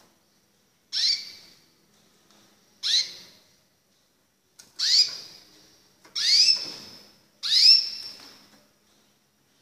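White recessive canary giving single call notes, five in all, spaced about one to two seconds apart. Each is a quick upward-sweeping chirp that fades out with a short echo.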